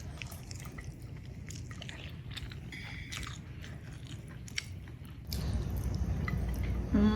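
Someone chewing and eating rice, with small wet mouth sounds and clicks. A steady low rumbling noise comes in about five seconds in.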